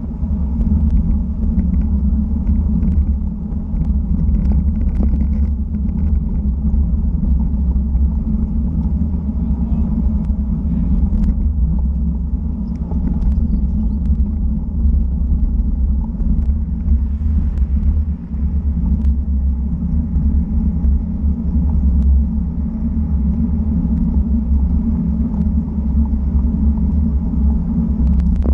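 Wind buffeting the microphone of a bike-mounted action camera, mixed with road-bike tyre roar on asphalt, while riding at 30 to 40 km/h. A loud, steady low rumble, with a few faint ticks.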